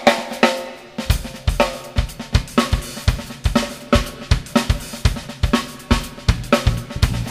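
Drum kit playing a song's intro: a short fill, then from about a second in a steady beat of kick drum, snare, hi-hat and cymbals, with the drums alone.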